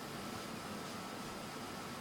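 Steady background hiss, like a fan or air conditioner, with a faint steady high whine; no snore sounds until just after it.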